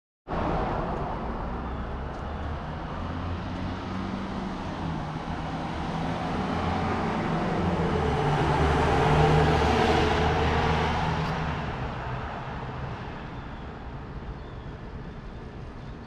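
A motor vehicle passing by: a low engine hum and road noise build up, peak a little past halfway, then fade away.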